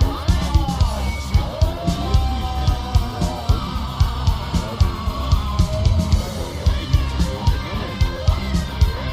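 Rock song with guitar, a steady drum beat and singing.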